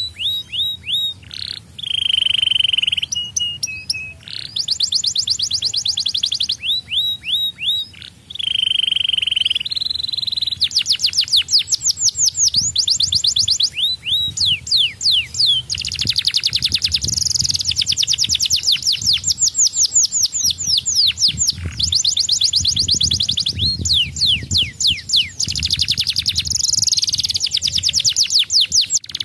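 Domestic canary singing: long trills of fast, evenly repeated notes. In the first ten seconds a few held whistled notes break up the trills, and after that the song runs almost without a break.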